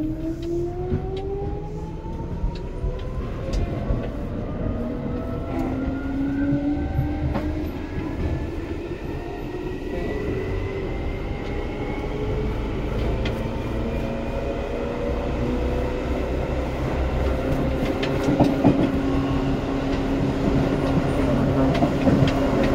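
Seibu 2000 series electric train accelerating, heard from aboard: the traction motor and gear whine rises steadily in pitch over about twelve seconds, then levels off as the train runs on. Low running rumble throughout, with scattered clacks of the wheels over rail joints.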